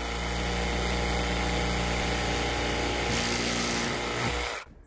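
Milwaukee cordless jigsaw cutting through PVC pipe. Its motor runs at a steady pitch and stops shortly before the end.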